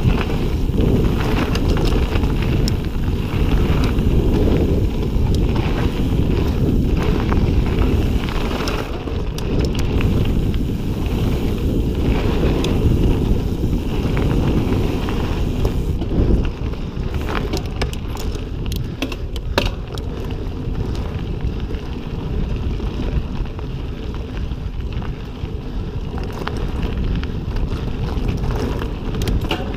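Riding an Ibis Ripley mountain bike fast down dirt singletrack: wind buffeting the camera's microphone as a steady low rush, with the tyres on dirt and scattered sharp clicks and rattles from the bike over rough ground, busiest a little past halfway.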